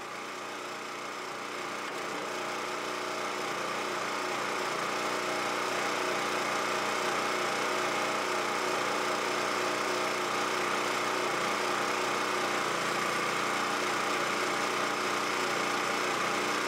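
Portable gasoline generator running steadily with an even engine hum, growing louder over the first few seconds and then holding steady.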